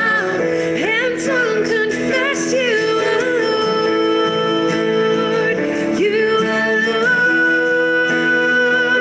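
A worship song: a woman singing slow, held melody lines with a man singing along, over strummed acoustic guitar and keyboard.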